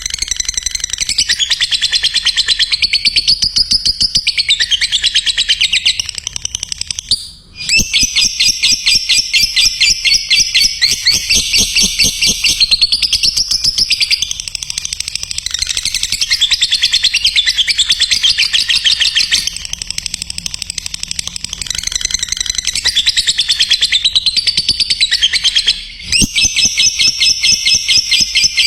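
Lovebird chattering in long, fast runs of high repeated chirps, the continuous 'ngekek' song, breaking off briefly twice.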